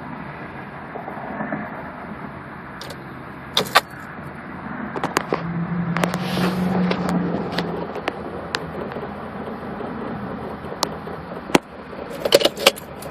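2004 Honda Civic failing to start: scattered ignition clicks and a low steady buzz of about two seconds, about five seconds in, with a quick run of clicks and key jingle near the end. This no-start fault was traced to a failing battery.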